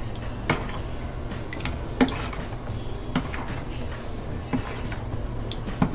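Metal spoon stirring thick soap batter in a plastic mixing bowl, knocking against the bowl about five times at uneven intervals, over a low steady hum.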